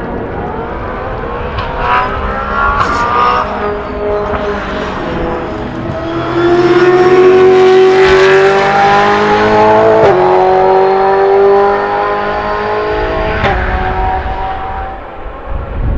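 Brabham BT62 race car's V8 engine at hard throttle, its pitch climbing through the gears with quick upshifts. It grows loudest midway as the car passes, then fades.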